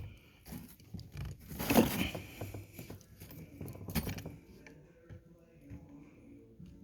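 Small metal terminal release keys clicking and rattling as they are picked through and tried in a plastic wiring connector, in short scattered handling noises.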